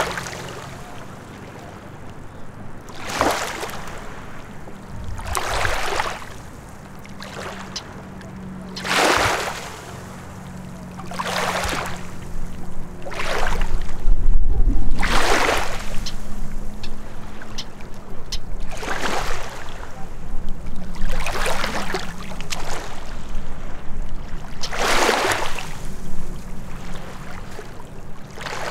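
Small waves lapping and washing over the rocks at a lakeshore, one wash every two to four seconds, over a low steady hum, with a deep rumble swelling about halfway through.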